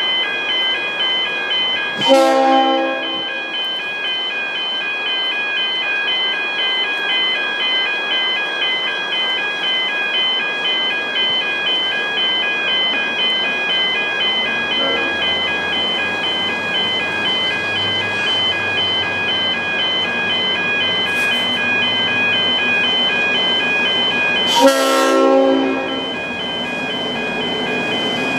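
Level crossing warning bells ringing in a fast, steady electronic pulse while a V/Line N class diesel locomotive approaches. It gives two horn blasts, a short one about two seconds in and a longer one near the end, and its low engine rumble grows in the second half.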